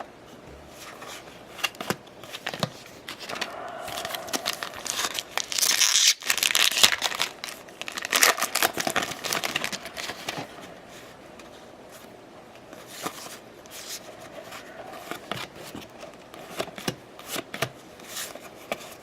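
Baseball card pack wrappers being torn open and crinkled, loudest for several seconds in the middle, with scattered crackles and clicks of wrappers and cards being handled.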